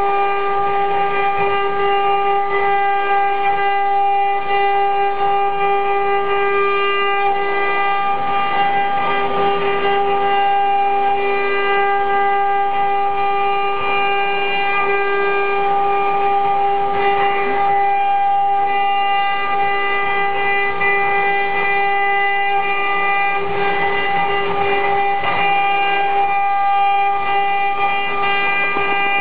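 Eight-head CNC router's spindles running and cutting wood: a steady high whine with the rasping noise of the bits chewing through the board swelling and easing.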